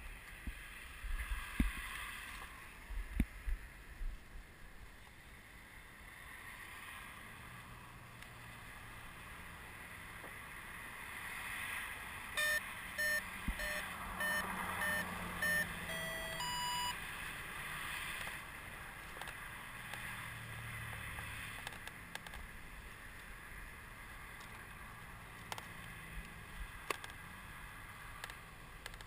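Electric RC jet's speed controller beeping as its battery is plugged in: a row of short, evenly spaced beeps about twelve seconds in, then a quick rising series of tones. Wind rushes on the microphone throughout, with handling clicks.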